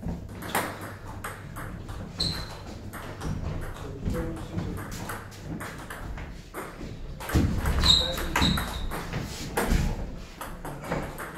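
Table tennis rally: the ball clicking off the bats and bouncing on the table in quick sharp knocks, a few of them ringing with a short high ping. A few heavier thumps come in the second half, where it is loudest.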